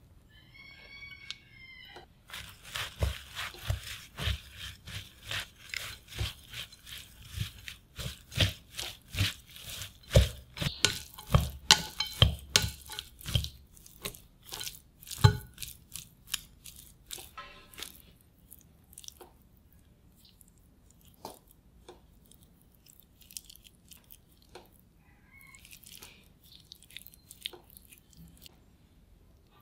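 Metal chopsticks stirring flour-coated shredded potato in a glass bowl, with a quick run of clinks and scrapes against the glass. About halfway through it gives way to fainter, sparser rustling and clicks as hands toss the potato strands.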